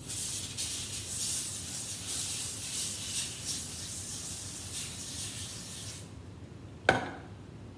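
Aerosol canola oil cooking spray hissing onto a foil-lined tray for about six seconds in uneven pulses, then stopping. A sharp knock near the end.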